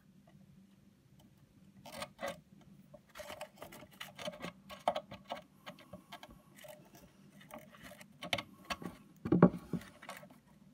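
Handling noise from desoldering speaker leads with a soldering iron: small irregular clicks and scrapes as the iron and stranded wires work at the speaker's solder tab. There is a louder knock about nine seconds in.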